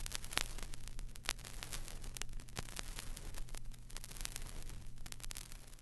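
Faint static hiss over a steady low hum, broken by scattered short clicks.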